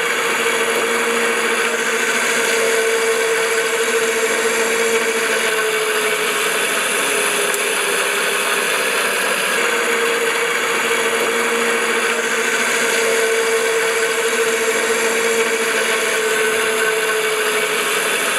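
A motor running steadily, its hum wavering slowly up and down in pitch.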